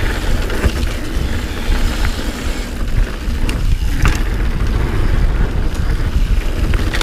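Mountain bike descending a dirt trail at speed: wind buffeting the action camera's microphone over the rumble of tyres on dirt, with a few sharp knocks from the bike over bumps.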